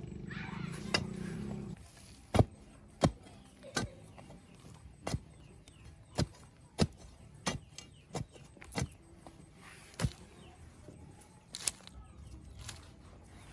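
A low steady hum that cuts off about two seconds in, followed by a series of sharp knocks at irregular intervals, roughly one a second.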